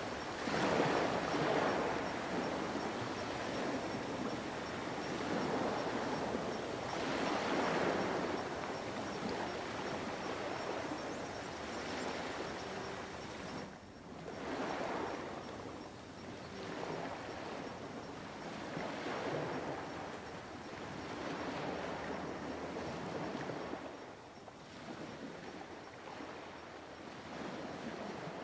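Ocean surf: waves washing in, a rushing noise that swells and fades every few seconds.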